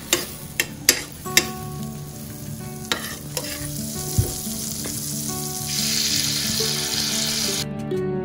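Marinated chicken pieces sizzling as they fry in melted butter in a pan, with several sharp knocks of a utensil against the pan as they are stirred in the first few seconds. The sizzle grows louder and brighter about six seconds in, then cuts off suddenly just before the end.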